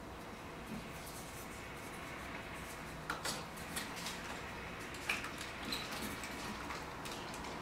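Light clicks and small knocks of hard plastic parts as a 1/6-scale ED-209 collectible figure is handled and worked on, over a soft rustle; the clicks come mostly in the second half, the sharpest about five seconds in.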